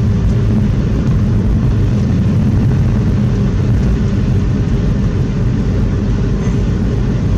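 Steady road and engine noise of a car driving, heard from inside the cabin: an even low rumble that holds without change.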